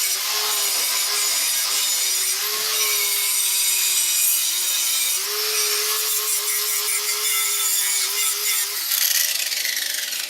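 Angle grinder running against a steel push bar, grinding powder-coat paint off so the welder's ground can make a good connection. The motor's whine sags and recovers as it bites, then it is switched off about nine seconds in and winds down.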